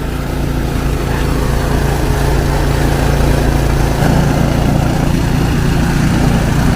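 Engine of a snow-clearing machine running steadily under load, its pitch shifting slightly about four seconds in.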